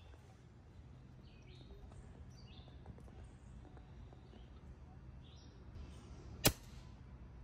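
A single sharp shot from a .25-calibre EDgun Leshiy 2 PCP air rifle near the end, over small birds chirping and a steady low hum.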